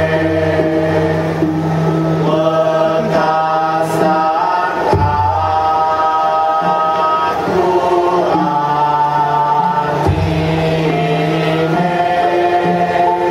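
Karawitan vocal ensemble singing in chorus: several voices holding long notes and sliding between pitches, over low sustained tones.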